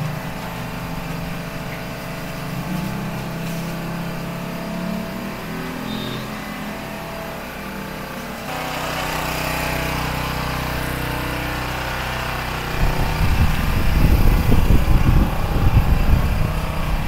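Steady background hum of a small shop, then outdoor street ambience with traffic, where a loud, uneven low rumble takes over about two-thirds of the way through.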